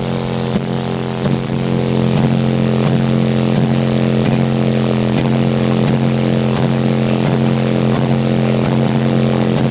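Car audio system with four American Bass HD 15-inch subwoofers playing one steady, heavily distorted bass note at high level, heard inside the car, with irregular clicks of rattling trim through it.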